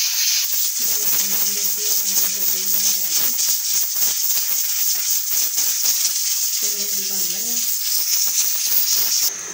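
Pressure cooker on the stove hissing steam with its weight rattling, meaning it is at full pressure; the hiss cuts off suddenly near the end.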